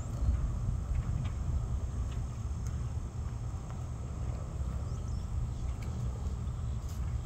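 Outdoor pasture ambience: a steady low rumble with faint insects chirring.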